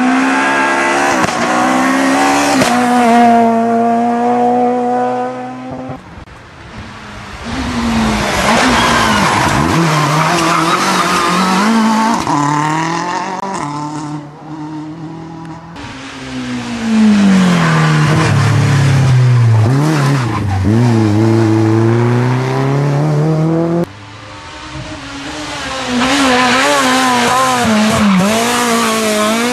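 Rally car engines revving hard and dropping back through tight bends and gear changes, one car after another, with tyre squeal.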